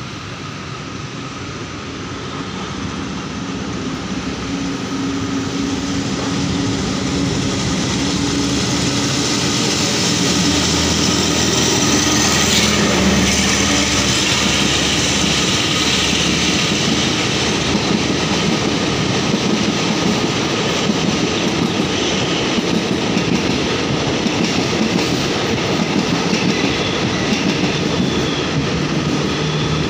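Caterpillar-engined Alsthom diesel-electric locomotive approaching and passing underneath with a train of empty coaches: the engine drone grows louder over about ten seconds, then the coaches keep rolling past.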